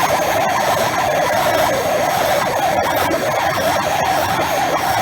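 Gas torch flame burning steadily with a fluttering roar as it heats an oil-canning spot in a steel truck roof to shrink the metal.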